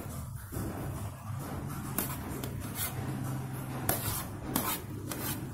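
Metal spoon scraping and tapping against a cooking pot while spreading cooked rice into a layer, in several short scrapes over a steady low hum.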